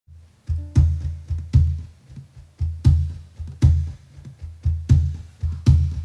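Drum beat opening a song: deep bass-drum thumps, each with a sharp attack, in a sparse repeating pattern.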